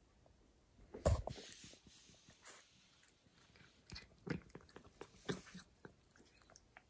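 Domestic cat eating cheese from a hand: irregular wet clicks and smacks of chewing and licking. A louder thump with a short hiss about a second in.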